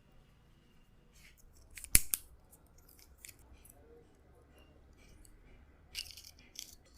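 Barber's scissors snipping: a few sharp, separate snips, the loudest about two seconds in and another quick group near the end.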